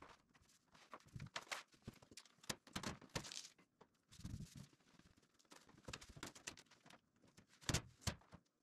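Faint, irregular rustling and tapping of wide masking film being smoothed by hand onto a car roof, with two sharper knocks near the end.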